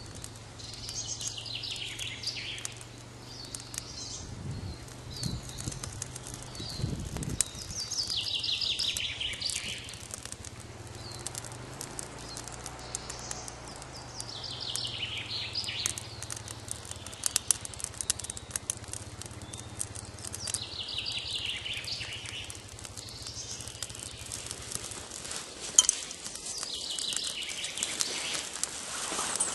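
A songbird singing the same short, high, falling phrase about every six seconds, five times in all. Between the songs come scattered small clicks and crackles as a twig fire is lit inside a stone oven, thickest past the middle, with one sharp snap near the end.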